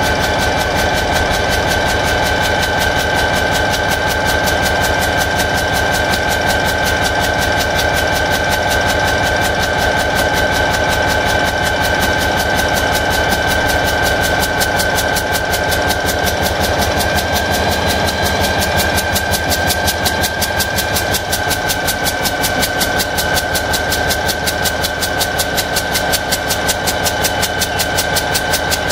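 EMD GT-26 locomotive's two-stroke diesel engine running steadily at idle, with a fast even firing beat and a steady high whine over it. The beat grows a little rougher in the last ten seconds.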